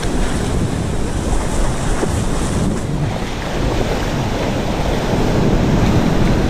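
Surf breaking and washing up the beach, a steady rush of water with wind buffeting the microphone, swelling a little near the end.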